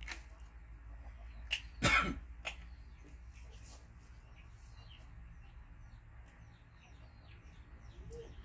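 A single short cough-like burst about two seconds in, with a few faint clicks just before and after it, over a low steady hum.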